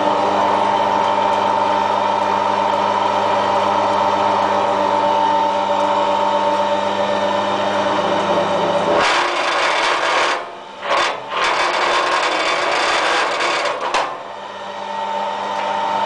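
Electric wire-stripping machine running with a steady motor hum. About nine seconds in, the hum gives way to a harsher scraping noise for some five seconds, broken by two brief dips, as aluminium cable is drawn through its cutting blades.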